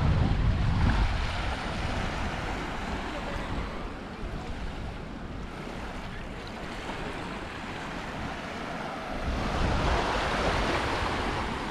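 Sea waves washing onto the beach, a steady surf wash with a louder wave breaking about ten seconds in. Wind rumbles on the microphone near the start.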